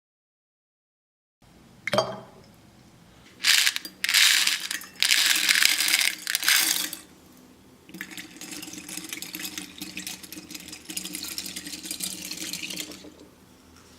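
Something poured or tipped into a container in several loud rushing bursts, like small beads or water, followed by a softer, steady crackling patter.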